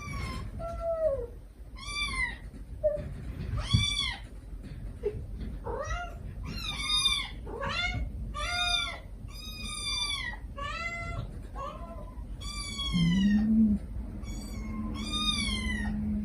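Kittens mewing over and over in short, high-pitched, arching cries, one after another with barely a pause, mixed with a few lower meows. About thirteen seconds in, a mother cat gives a low rising call, then a long, steady low call.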